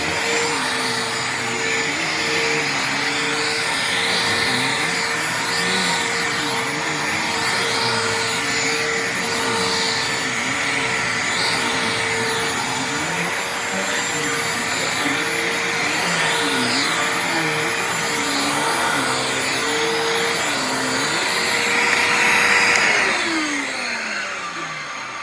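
Hoover Tempo bagless upright vacuum cleaner running on carpet, its tone wavering up and down over and over. About three seconds before the end it is switched off and the motor winds down in a falling whine.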